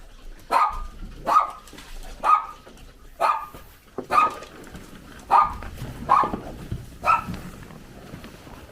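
A dog barking repeatedly: about eight sharp barks, roughly one a second, that stop about seven seconds in.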